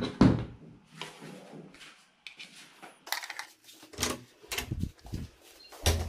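Handling noise from small audio gear: a heavy thump just after the start, then scattered knocks and clicks as a compact mixer and a small circuit board are set down and picked up.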